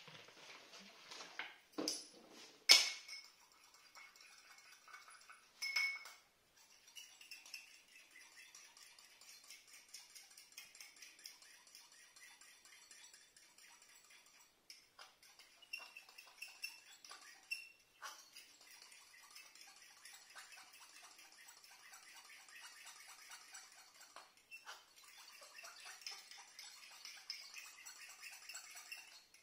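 Handling of a package during unboxing: a few sharp clicks and taps in the first few seconds, the loudest about three seconds in, then soft crinkly rustling and small ticks.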